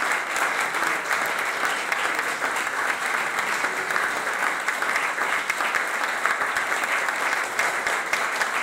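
Audience applauding, a dense steady clapping that holds at an even level throughout.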